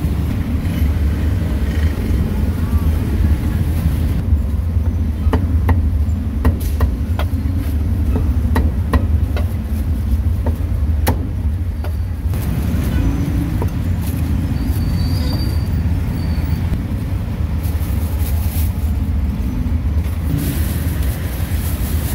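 Steady low rumble of street traffic, with a run of sharp cleaver chops on a wooden chopping block through the middle, cutting roast pork. Near the end comes a plastic bag rustling as a foam food box is bagged.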